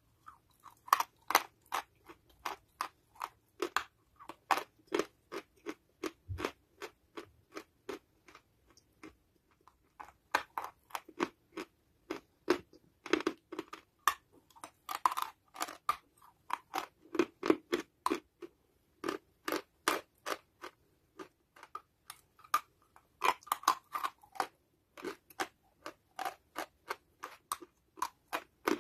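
A person biting and chewing dry, crumbly chalk, a rapid run of sharp crunches about two to three a second, with a couple of brief pauses.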